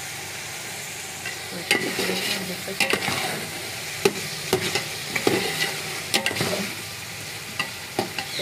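Chicken curry sizzling in a large metal pot as a slotted metal spatula stirs it. The spatula scrapes and clinks against the pot at irregular moments, about once a second, over a steady sizzling hiss.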